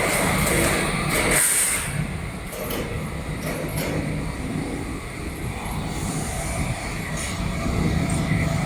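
Test machinery for air-tightness testing of air-conditioning pipes, running with a steady low hum, and a short hiss of compressed air about a second and a half in.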